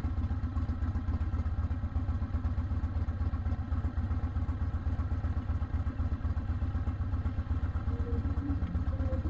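Motorcycle engine running steadily on the move, a deep even rumble with no change in speed.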